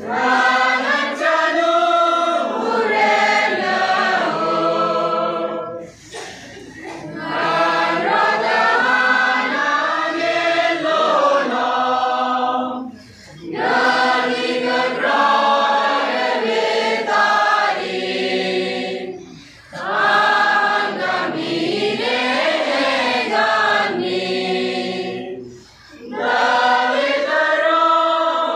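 Large mixed choir of men and women singing a carol together, in phrases of about six seconds with short breaks for breath between them.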